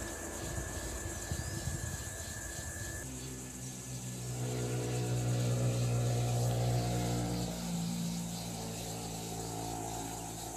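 A vehicle engine droning steadily, which comes in about three seconds in and eases off after about seven seconds.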